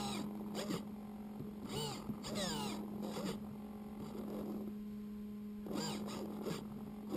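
A steady electrical hum picked up by the parked FPV RC car's onboard camera, with several short bird-like chirps that sweep up and down in pitch scattered through it, the busiest stretch about two seconds in.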